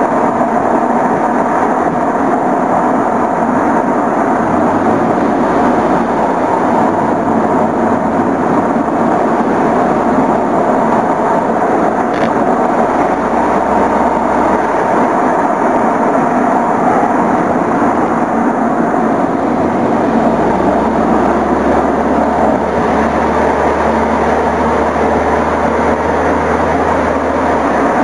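Steady rushing wind and road noise on a camera mounted on the front of a moving car, with a low rumble that comes and goes.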